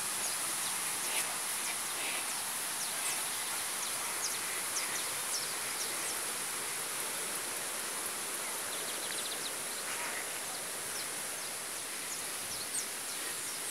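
Steady outdoor background noise with a constant high-pitched insect buzz and scattered short, high chirps.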